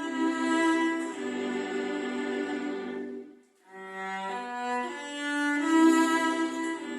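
Bowed string instruments playing slow, held notes in a calm melody, with a short break about three and a half seconds in before the playing resumes.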